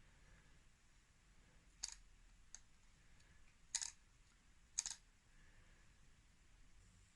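Near silence broken by four short, sharp clicks, like small hard objects being handled; the last two, about a second apart, are the loudest.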